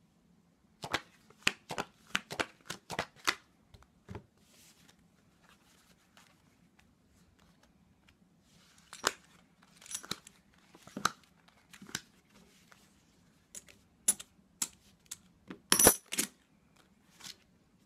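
Playing cards handled by hand: sharp card snaps and clicks, a quick run of about eight in the first few seconds, then scattered single snaps and small clusters, the loudest near the end.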